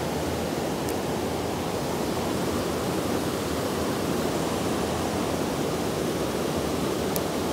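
River water rushing over rocks and a small rapid: a steady rushing noise, with two faint ticks, one about a second in and one near the end.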